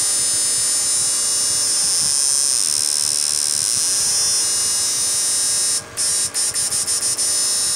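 Homemade transistor inverter with two transformers and an SCR output stage, running at full power into halogen lamps: a loud, steady high-pitched electrical whine and buzz. About six seconds in it cuts in and out rapidly several times.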